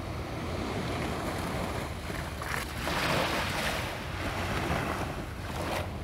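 Small waves washing in at the water's edge, the wash swelling and falling back, loudest about three seconds in and again near the end, with wind rumbling on the microphone.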